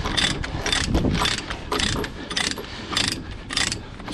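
Ratchet chain binder being cranked to tension a tie-down chain, its pawl clicking in short bursts about twice a second as the handle is worked.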